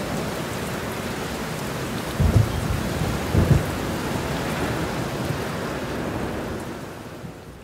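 Steady rain with two short, low thunder rumbles, about two and three and a half seconds in, fading out near the end.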